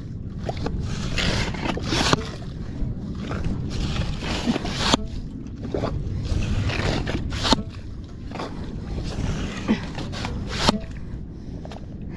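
A hand bait pump working wet sand to dig ghost shrimp: repeated sucking and scraping strokes as the tube is driven in and emptied, with wet sand and water sloshing out, over a steady low rumble.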